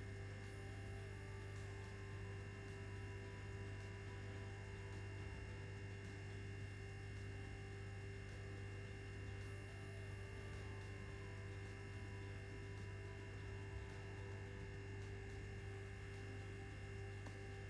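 Steady low electrical hum with a fainter, higher steady tone above it, unchanging throughout; nothing else is heard.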